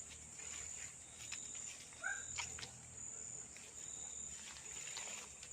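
Steady chorus of insects such as crickets, a high trill that pulses in even stretches, with faint rustling clicks and one short animal call about two seconds in.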